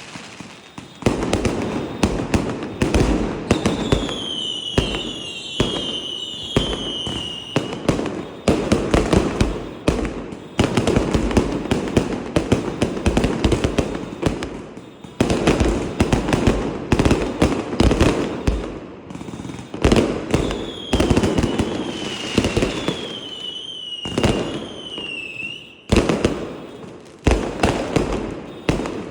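Fireworks and strings of firecrackers going off in rapid, continuous cracks and bangs, with two stretches of overlapping falling whistles from whistling fireworks.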